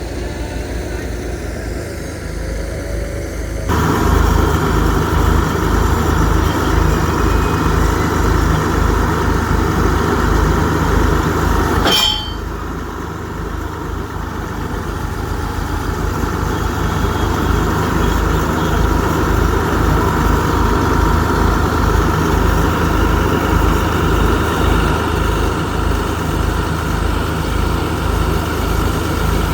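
Heavy machinery's engine running while a foundation pit is dug, with a rapid, even low pulse. It gets louder about four seconds in, drops after a sharp click near the middle, then builds up again.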